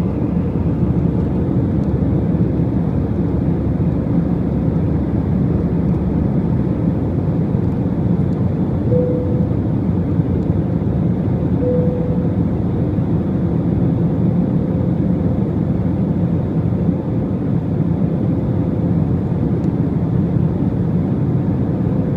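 Steady roar of an airliner's engines and rushing air heard inside the passenger cabin, with a faint steady hum under it.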